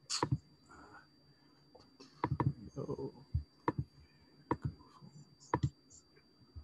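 Computer mouse clicking, about half a dozen sharp separate clicks spread over several seconds, as screen sharing is started on a video call, with a faint steady high whine underneath.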